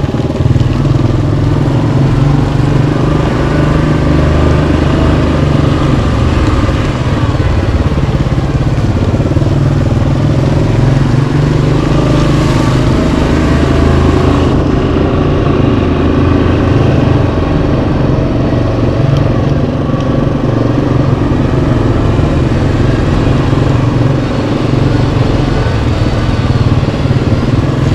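Yamaha Kodiak 700 ATV's single-cylinder engine running steadily while riding along a trail, its pitch rising and falling a little.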